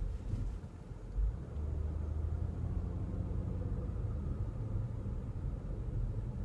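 Cabin noise of a 2015 Nissan Murano driving slowly: low road and engine rumble, with a single short low thump about a second in, then a steadier engine hum that rises a little as the car picks up speed.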